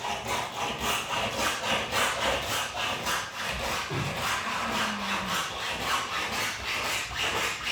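Windscreen cut-out wire being sawn back and forth through the glass's bonding adhesive along the top edge, steady rubbing strokes at about four a second.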